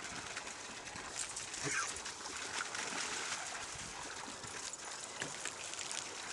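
Dogs wading in a shallow plastic wading pool, the water splashing and sloshing faintly and irregularly, with a short faint animal call about two seconds in.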